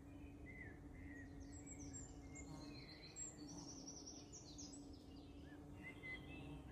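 Several woodland birds singing and calling at once, faint short chirps and trills overlapping, busiest in the middle, over a steady low hum.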